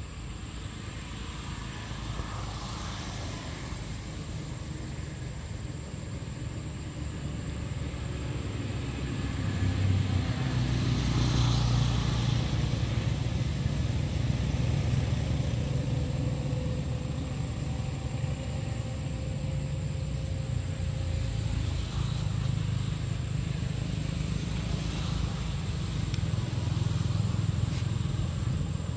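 Low rumble of passing road traffic, swelling louder about nine seconds in and staying up, with a faint engine tone drifting in pitch in the middle.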